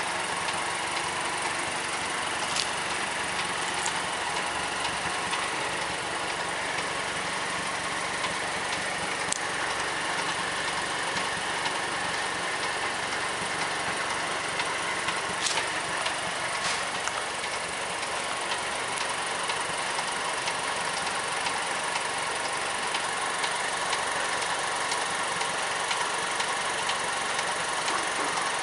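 Mazdaspeed3's turbocharged 2.3-litre four-cylinder engine idling steadily with an even ticking running through it, plus a few sharper clicks: the tick noise the owner is recording.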